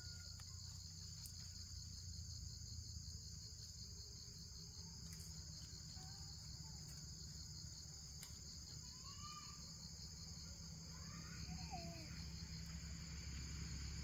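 Steady, high-pitched drone of an insect chorus in the forest, with a few faint short calls and light clicks over it.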